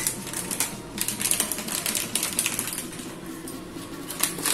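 Rapid light clicks and taps of a steel spoon against small steel bowls, a few louder knocks about a second in and near the end.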